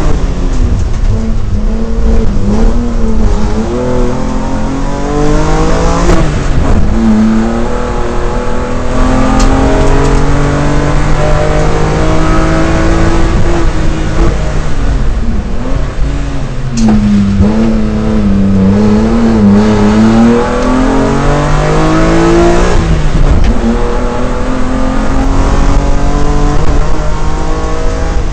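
BMW M3 race car's engine heard on board at full racing effort, its note climbing under acceleration and falling back sharply about six seconds in, around sixteen seconds and near twenty-three seconds as the driver lifts and shifts for the corners.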